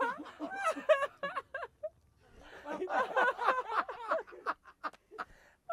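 Two men in a fit of laughter, laughing hard in repeated short bursts, breaking off briefly about two seconds in and starting again.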